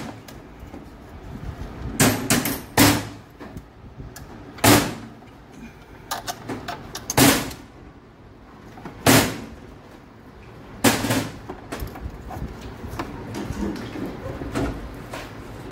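Repeated sharp metal knocks and clunks: about six loud ones a second or two apart, with lighter clicks and taps between them and in the last few seconds.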